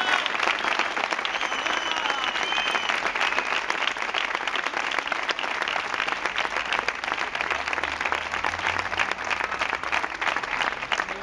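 A crowd of about a hundred people applauding steadily, with some voices calling out in the first few seconds.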